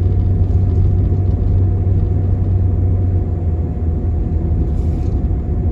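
Steady road noise from a moving vehicle, heard from inside: a low, even rumble of engine and tyres with a faint steady hum above it.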